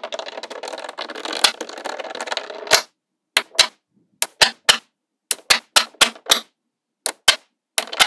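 Small magnetic balls clicking together as they are laid onto a flat layer: a quick, dense rattle of clicks for the first three seconds or so, then separate sharp snaps, often in pairs, as short rows are pressed into place.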